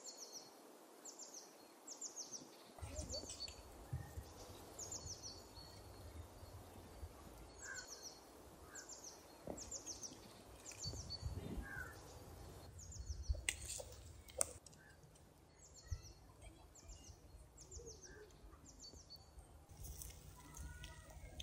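A small bird calling over and over: short, high chirps that drop in pitch, in runs of about two a second, over a low outdoor rumble. Two sharp clicks come about two-thirds of the way through.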